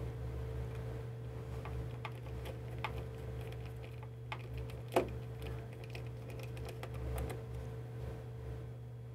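Light clicks and ticks of a small screwdriver turning screws into a blood pressure monitor's circuit board and plastic case, with a sharper click about five seconds in, over a steady low hum.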